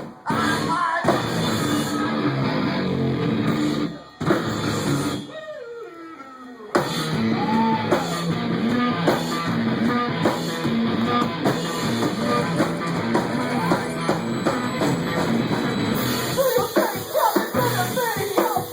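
Live rock band playing, with drums and guitar. The music drops back to a quieter passage about four seconds in, and the full band comes back in sharply a little under seven seconds in.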